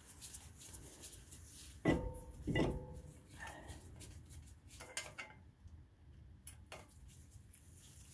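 Metal knocks and clinks as a new brake rotor is worked onto the wheel hub with a screwdriver: two sharp knocks with a brief ringing about two seconds in, then a few lighter clicks.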